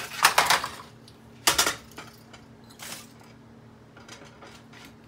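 A few sharp clinks and knocks of dishes and utensils being handled: a cluster in the first second, another about a second and a half in, a lighter one near three seconds, then only faint ticks.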